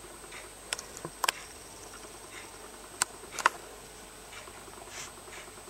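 Eighteen-day-old rough collie puppies mouthing and nuzzling, with soft snuffles and a few sharp clicks of small mouths, four of them spread over the first three and a half seconds.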